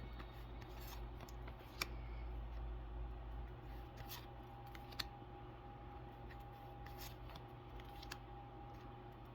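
Pokémon trading cards and booster pack wrappers being handled close by: faint rustling and sliding, with a sharp click about two seconds in and another about five seconds in, over a steady low hum.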